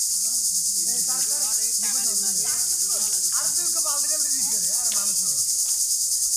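A loud, steady, high-pitched insect chorus with a fast even pulse, with people's voices calling faintly underneath.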